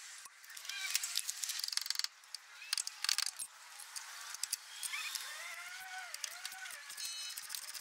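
Socket ratchet clicking in short runs, with metal tools clinking, as a front coilover mounting bolt is loosened.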